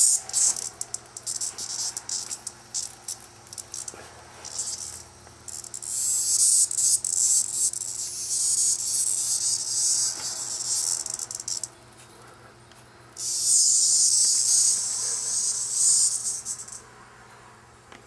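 Cicada buzzing in distress as a cat paws at it. The buzz comes in choppy bursts at first, then as one long buzz, a short pause, and another long buzz that stops shortly before the end.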